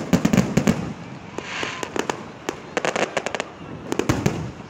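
Aerial fireworks shells bursting overhead: sharp bangs in several quick clusters, one right at the start, others about a second and a half, three and four seconds in.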